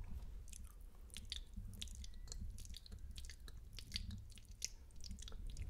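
Wet, spitty mouth sounds made right against a microphone: an irregular, rapid run of short lip smacks and tongue clicks, the ASMR 'spit painting' trigger.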